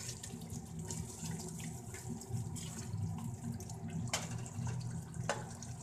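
Green peas simmering in a thin, watery masala in a steel pot while a spoon stirs through the liquid, with two sharp knocks of the spoon against the pot about four and five seconds in. The peas are being cooked soft in added water.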